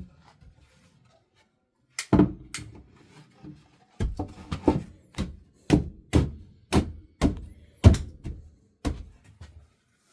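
A series of dull thunks or knocks: one about two seconds in, then about ten more in a row, roughly two a second, each with a short low ringing after it.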